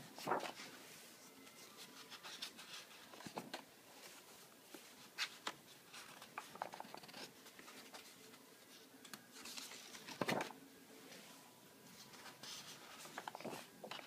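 Pages of a Moleskine sketchbook being turned by hand: short papery swishes a few seconds apart, the loudest about ten seconds in, with lighter rubbing and handling of the paper between them.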